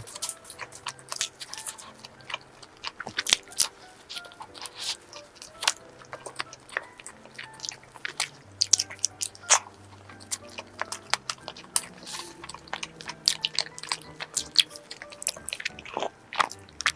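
Close-miked eating of cream-filled donuts: soft bites and chewing with many sharp, wet mouth clicks, over quiet background music.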